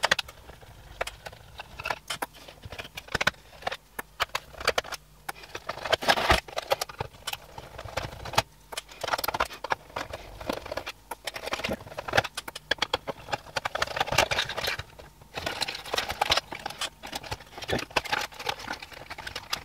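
Irregular clicks, taps and rustles of hands taking apart a small LED projector: plastic housing parts knocking and wires and connectors being pulled around the circuit board.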